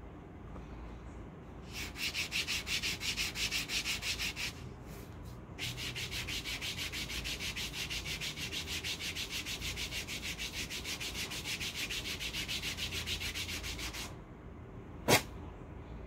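A hand rubbing briskly back and forth over the shin, smoothing down a hair removal paper strip for leg waxing, in two runs of quick, even strokes about five a second. Near the end, a single sharp snap.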